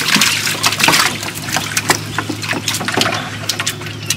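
Water splashing and pouring from an emptied fish trap into the bottom of a boat, loudest in the first second, followed by irregular slaps and knocks as caught walking catfish flop against the hull.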